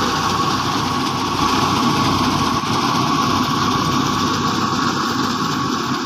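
Tractor's diesel engine running steadily at constant speed while cutting wheat with a reaper, with a steady high hum over the engine noise.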